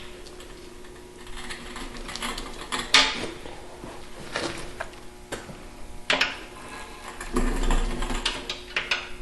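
Air compressor being rolled around on its stock wheels: irregular clanks and rattles from the tank and frame, the sharpest about three and six seconds in, with a louder rumbling stretch near the end.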